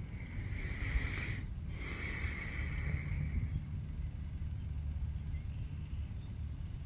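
Two harsh, hissing screeches in a row from an unseen animal, each over a second long, over a steady low rumble.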